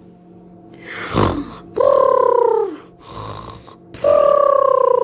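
Comic, exaggerated snoring, two full breaths: each a rasping snort on the in-breath, then a long, slightly falling, whistle-like tone on the out-breath. It is loud, the snoring that keeps the whole farm awake.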